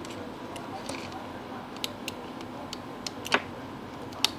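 Several light, sharp clicks and taps of a multimeter probe touching the phone's circuit board, the loudest a little past three seconds in and another near the end, over a steady low hum.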